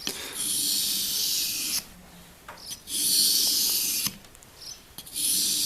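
A knife blade drawn along the 6000-grit side of a wet whetstone in three long, even strokes, each about a second and a half, a scraping hiss: the final sharpening of the edge.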